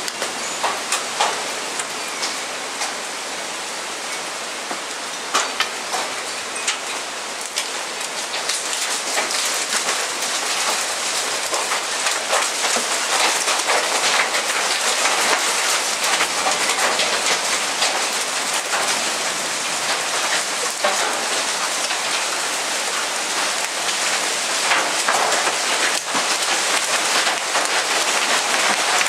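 Hailstorm with heavy rain: a dense hiss with many sharp ticks of hailstones striking the roof overhead and the ground. It grows louder about eight seconds in.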